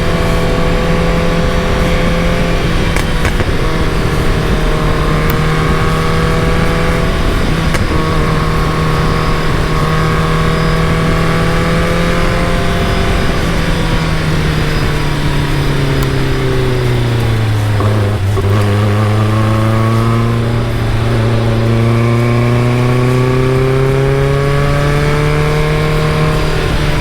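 Caterham Super Seven's engine running at steady revs under way. About two-thirds of the way through the revs fall away, then climb slowly and evenly again as the car picks up speed.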